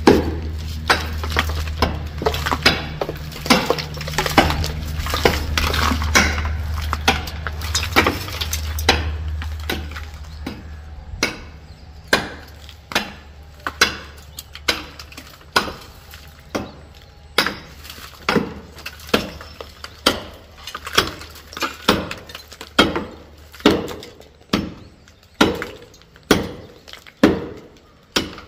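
Repeated sharp knocks on wood, coming about once a second at an even pace in the second half. Under the earlier knocks runs a steady low hum, which fades out about ten seconds in.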